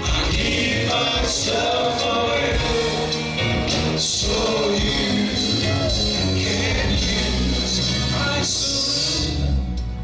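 Gospel music: singing over a band, with a bass line underneath.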